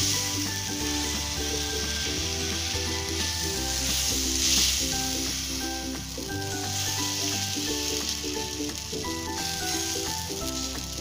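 Urad dal and egg batter sizzling on a hot, oiled iron tawa as a ladle spreads it out, a steady frying hiss. Background music with held chords and a bass line plays throughout.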